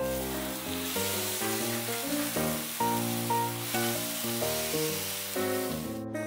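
Slices of beef loin steak sizzling on a hot flat-top griddle, a steady hiss that stops suddenly near the end. Background piano music plays throughout.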